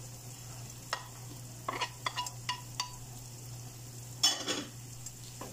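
Wooden spatula scraping diced carrots off a ceramic plate into a frying pan: a run of light clicks and clinks, some with a short ring from the plate, over the faint sizzle of onion and garlic frying in butter. About four seconds in comes a louder, brief scrape and sizzle as the carrots are pushed into the pan.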